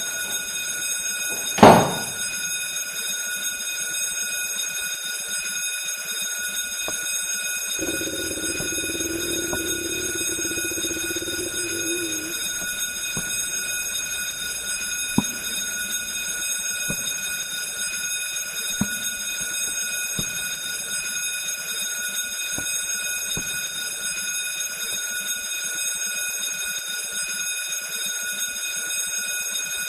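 Fire alarm sounder giving a steady, continuous high electronic tone. A single loud bang comes about two seconds in, and a few faint knocks later.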